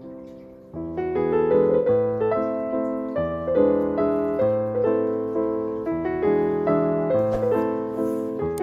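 Background piano music: a gentle melody of struck notes and chords, with a new phrase starting about a second in.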